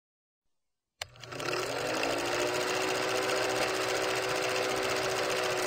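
Film projector running, a fast mechanical clatter with a motor hum, like the sound effect laid under a countdown leader. It starts with a click about a second in and comes up to speed within half a second.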